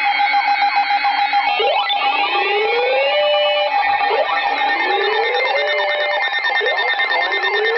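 Electronic emergency alert attention tone: a loud, dense alarm with a steady tone, fast pulsing and a rising swoop about every two and a half seconds.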